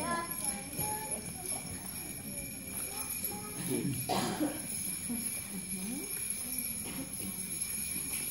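Many small jingle bells jingling steadily as preschoolers shake and handle them, with children's and adults' voices chattering quietly underneath.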